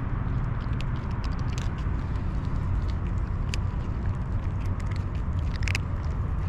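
Two cats chewing dry kibble close up: a scatter of sharp crunches and clicks over a steady low rumble.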